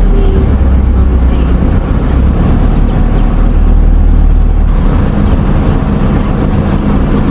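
Car engine and road rumble heard from inside the cabin of a slowly moving car: a loud, deep, steady rumble. About five seconds in, the deepest rumble eases and a steady pitched engine hum comes through.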